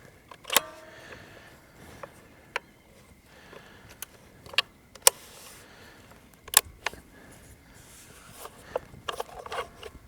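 Scattered sharp clicks and light knocks, irregularly spaced; the one about half a second in has a short metallic ring.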